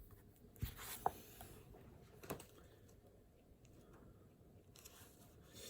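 A few faint, sharp clicks and knocks, then a soft rustle near the end, over quiet room tone.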